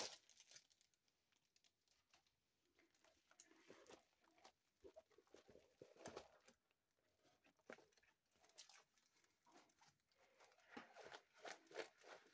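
Mostly near silence, with faint, sparse rustling and crinkling of a plastic-film-covered diamond painting canvas being handled and rolled, growing a little busier near the end.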